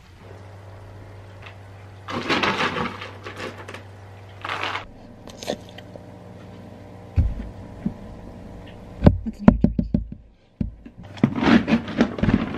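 A clear plastic storage bin and a Ziploc bag of dog treats being handled: irregular rustling and scraping, then a quick run of sharp plastic knocks a little past halfway and more rustling near the end. A low steady hum sits underneath for the first few seconds.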